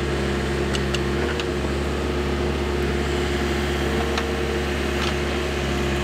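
Backhoe engine running steadily, with a few faint clicks over it.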